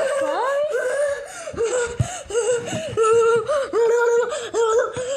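Children laughing: a run of short, high-pitched bursts of voice that bend up and down in pitch.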